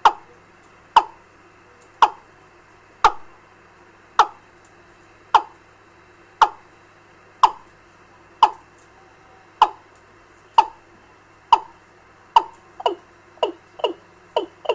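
Recorded fowl lure call played back through a bird-trapping amplifier's loudspeaker: short, sharp falling notes about once a second, quickening into closer pairs over the last few seconds.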